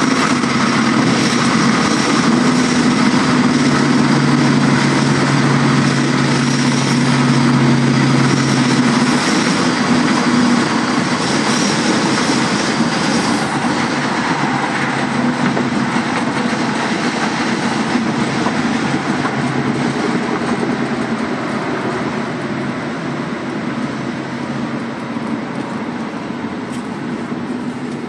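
Inside the cabin of a 1968 Chevrolet Chevelle on the move: the engine drones steadily under heavy wind and road noise. The engine's drone fades about a third of the way in, and the whole sound eases off gradually as the car slows.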